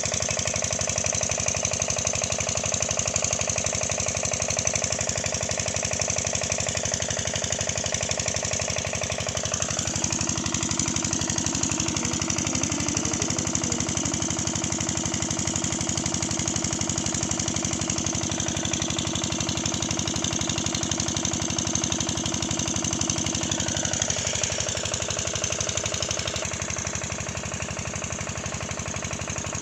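An engine running steadily with a fast, even knocking beat.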